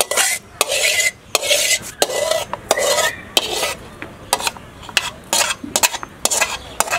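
Spatula scraping onion and green chilli out of a tilted metal frying pan into a bowl of beaten egg, in several quick strokes, followed by a run of short sharp taps against the pan.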